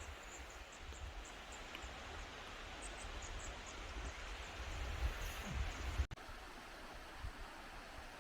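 A swollen river rushing steadily, with faint high bird chirps over it and a momentary dropout about six seconds in.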